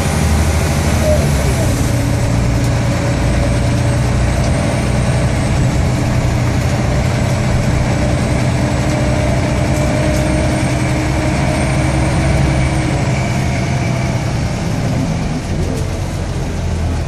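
Scania L113CRL bus's 11-litre straight-six diesel engine running under way, heard from inside the passenger saloon. Its steady engine note drops away near the end.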